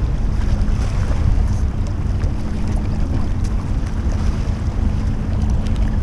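Wind buffeting the microphone as a loud, steady low rumble, with a faint steady hum underneath.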